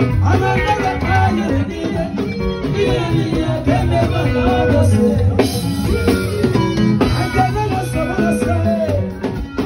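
Live band music with a man singing lead through a handheld microphone over drums and bass.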